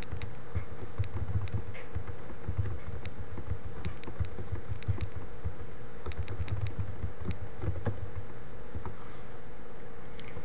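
Typing on a computer keyboard: short, irregular keystrokes throughout, over a steady low hum.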